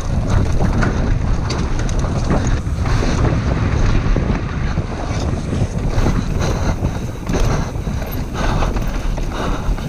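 Mountain bike descending a rocky dirt trail at speed: heavy wind buffeting on the microphone over the rumble of the tyres, with many rapid rattling knocks as the bike bounces over rocks and roots.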